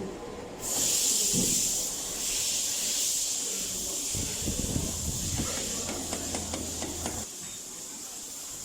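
A steady, high-pitched hiss, like escaping compressed air, that starts under a second in and cuts off about seven seconds in, with light knocks and ticks from parts being handled under it.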